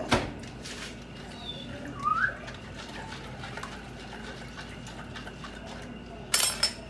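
Hands working dumpling dough in a stainless steel bowl, with a sharp knock at the start, a short rising chirp about two seconds in, and a brief loud noisy burst near the end.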